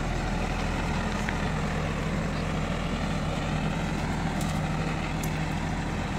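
A backhoe loader's Kirloskar diesel engine running steadily at low revs as the machine drives slowly along a gravel track.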